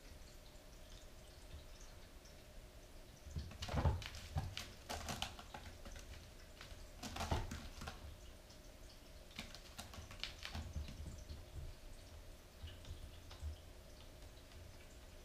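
Bengal kitten playing on a tile floor around a scratching post: light clicking and scuffling of paws and claws as it pounces and bats at a toy, in several short bursts, the loudest about four seconds in.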